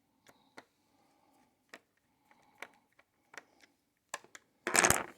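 Scattered light plastic clicks and taps as the laptop's bottom cover is pried and worked at by hand, with a brief louder rustling clatter near the end.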